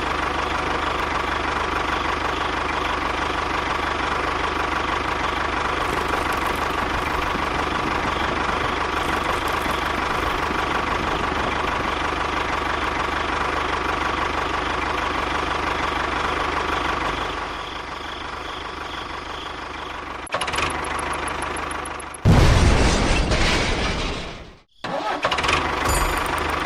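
A motor running steadily with a constant whine for most of the stretch. It changes and drops a little at around 17 seconds, then there are sudden cuts, with a louder, deeper-running stretch between about 22 and 25 seconds.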